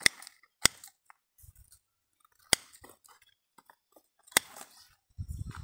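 Pruning shears snipping surplus grapevine shoots: four sharp, separate snips spread over several seconds, each followed by a short rustle, with a muffled low rumble near the end.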